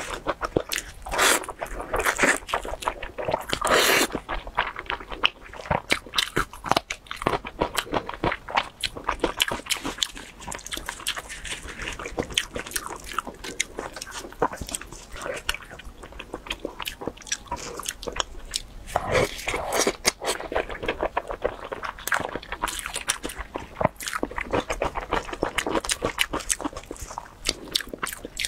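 Close-miked eating of meat-filled sticky-rice zongzi with a crispy topping: irregular crunching, biting and chewing, with a few louder crunchy bites. The dumplings are also pulled apart by gloved hands.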